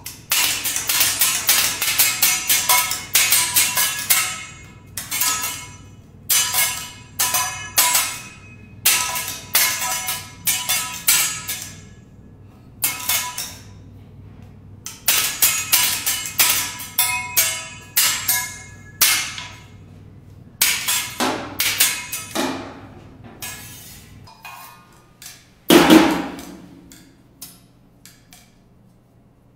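Steel teppanyaki spatulas clattering and tapping against each other and the griddle in fast rhythmic rolls of ringing metal strikes, broken by short pauses. Near the end comes a single louder clang that rings on briefly.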